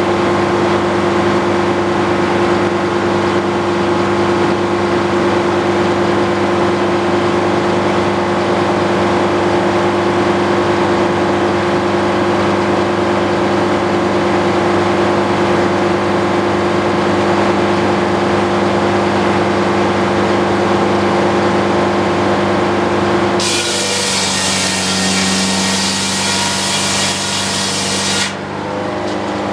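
Antique circular sawmill running steadily on its engine. Near the end the blade bites into wood for about five seconds, a loud hissing cut over the engine, which shifts under the load.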